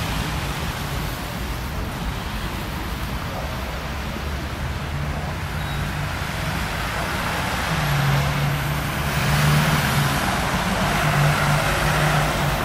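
Road traffic: cars and vans driving past on a wet, slushy street, with tyre hiss and engine hum. It grows louder in the second half as vehicles pass close by.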